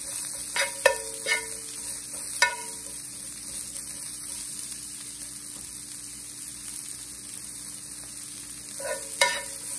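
Sliced red onions sizzling steadily in a cast-iron skillet, with metal tongs clinking against the pan four times in the first two and a half seconds and again near the end.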